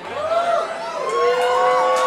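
Several voices wailing and whooping together in overlapping, rising and falling pitches, settling after about a second into long held notes.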